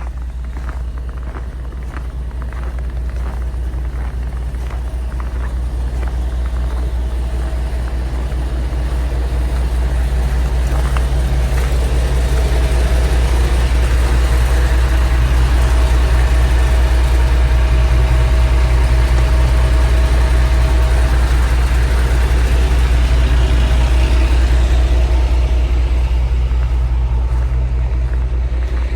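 Truck engine heard from inside the cab, running under load as the truck gets moving: it builds up over the first dozen seconds, holds steady, then eases off near the end.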